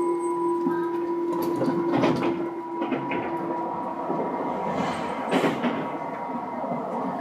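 Tobu 9000 series electric train running, heard from inside the car: steady rolling noise with humming tones, one of which drops out about halfway through, and a few sharp knocks from the wheels and car.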